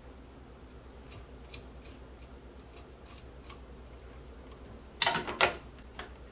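Light metallic ticks and clicks from a sewing-machine table's steel foot pedal and its linkage rod being handled, then a louder clatter of two sharp knocks about five seconds in as the pedal is moved.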